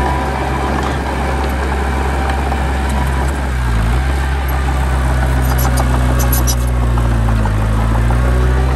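Heavy diesel engine of earthmoving machinery running continuously, its pitch sagging and recovering twice as it takes load. A few faint high clicks come about six seconds in.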